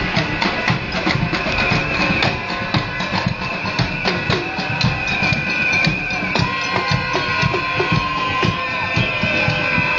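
Music with drums beating steadily under a melody of held notes.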